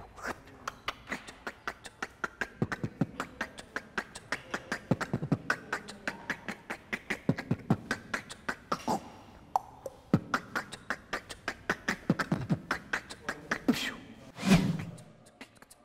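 Solo beatboxing: one performer's mouth, lips and voice imitating a drum machine in a fast run of sharp clicks and pops mixed with short hummed tones. Near the end comes a single loud low hit, then the pattern trails off.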